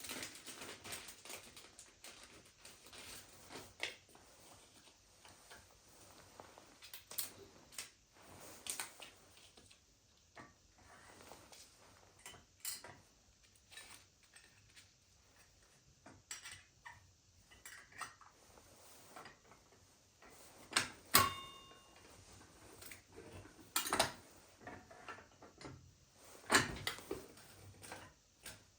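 Fridge magnets being handled, with irregular small clicks and knocks of hard pieces on a fridge and against each other; one sharper click about 21 seconds in rings briefly.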